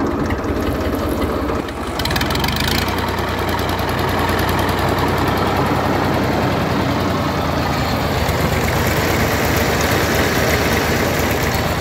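Massey Ferguson 35 tractor's three-cylinder, water-cooled diesel engine running while the tractor stands still. It is a little louder from about two seconds in.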